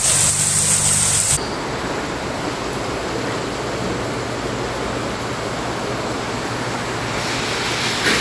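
Heavy rain and floodwater. A hard hiss of rain with a car engine humming underneath for about the first second and a half, then a steady rushing of floodwater running across a flooded floor.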